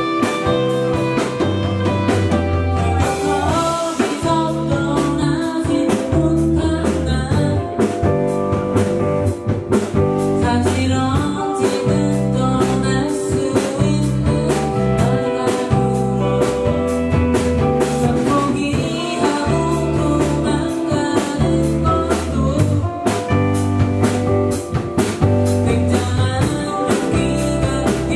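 A live rock band playing a song: electric guitar, bass notes and a drum kit keeping a steady beat, with a male voice singing the lead.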